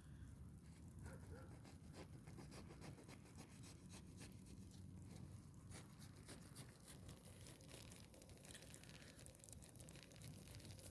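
Near silence: a faint low rumble with scattered soft clicks.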